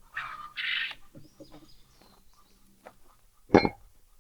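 Chickens clucking briefly, with faint high chirps, then a single loud sharp knock with a short ring about three and a half seconds in.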